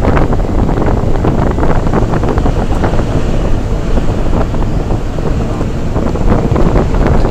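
Bus driving along a winding mountain road, heard from a window seat: loud, steady wind buffeting the microphone over the engine and road noise, with frequent small rattles and knocks.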